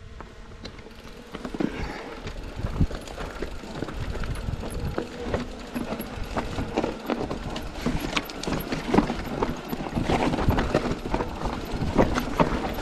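Mountain bike rolling over rocky, loose-stone trail: tyres crunching on stone and gravel, with frequent irregular knocks and rattles from the bike. It grows louder about a second and a half in.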